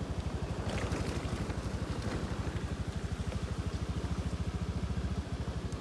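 Motorcycle engine running at low revs with a fast, even low pulsing, with a light hiss of wind and road noise over it.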